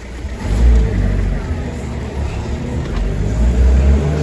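Deep, heavy bass notes pumping through a sound system's bass boxes, the bass line shifting in pitch.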